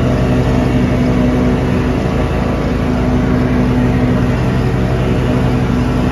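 Riding lawn tractor's engine running steadily at a constant pitch while it drives along mowing grass.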